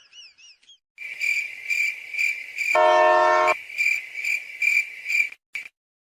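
Crickets chirping about twice a second, starting about a second in and cutting off abruptly near the end. A short, loud train-horn blast under a second long sounds about three seconds in.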